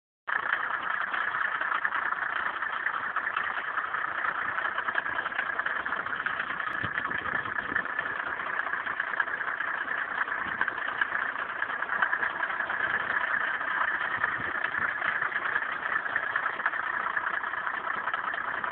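Mercedes-Benz W124's 3.0-litre straight-six diesel (OM603) idling steadily, with a knock in the engine that the owner cannot identify.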